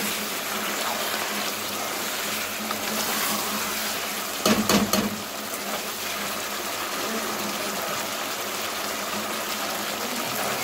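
Chicken sizzling steadily in a non-stick pan as it is stir-fried (bhuna) with a spatula. About four and a half seconds in, a brief clatter of the spatula scraping and knocking against the pan.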